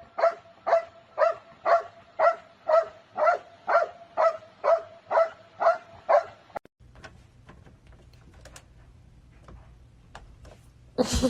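A dog barking in a steady series of short, same-pitched barks, about two a second, some thirteen in all. The barking stops after about six and a half seconds, leaving faint clicks.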